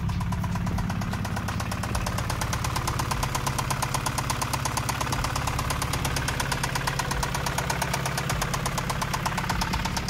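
Acura Integra's B20-VTEC engine running at a steady idle with a rapid, even knock: rod knock from connecting-rod bearings that have worn away.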